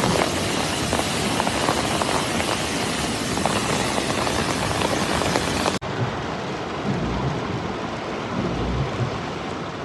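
Heavy downpour striking hard, with many sharp separate impacts in the rain. About six seconds in it cuts abruptly to a duller, steady rain sound with low rumbles underneath.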